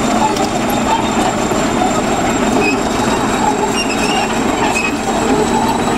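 Diesel engine of a crawler bulldozer running under load, with its steel tracks rolling over broken brick and gravel as the blade pushes the rubble.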